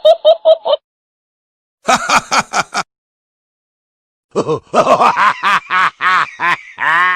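A run of separate laughing sound effects, each a quick string of 'ha ha' pulses, with short silent gaps between them: one ends just under a second in, a short one comes about two seconds in, and a longer one starts about four and a half seconds in.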